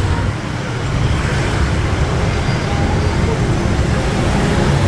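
Steady road traffic noise: a continuous low rumble of passing vehicles on a busy city street.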